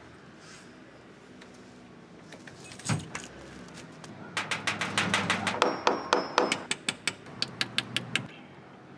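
Rapid sharp knocking on a glass-paned door, about five raps a second for some four seconds, after a single knock about three seconds in.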